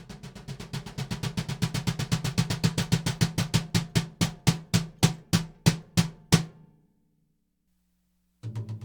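A drum with an Evans dB One low-volume mesh head played in a roll that starts fast and soft, then slows and grows louder before stopping about six and a half seconds in. Another drum starts being played near the end.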